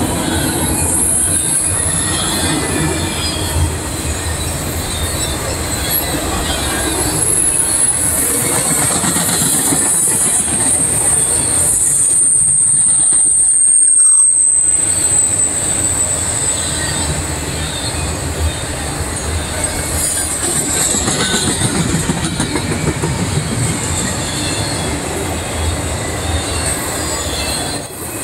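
Intermodal freight train's flatcars rolling past at close range, wheels rumbling and clacking on the rails. A thin, high wheel squeal rides over the rumble, sliding slightly down in pitch and fading out about halfway through.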